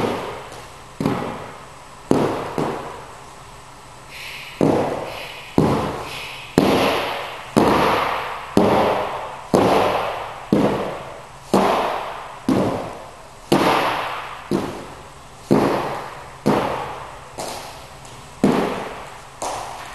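Hand dumbbells knocking down on a wooden floor, about once a second, as they are set down after each alternating row from a plank. Each knock echoes and fades in a large hall.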